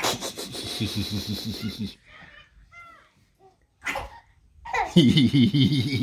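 A man making goofy vocal noises: two long, breathy, low noises with a wobbling pulse, the second opening with a falling swoop about five seconds in. Between them a baby gives short, high little giggles.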